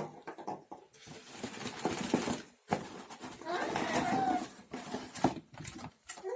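Rustling and a few light knocks as a plastic model kit's box and contents are handled. A short wavering voice-like call sounds about four seconds in.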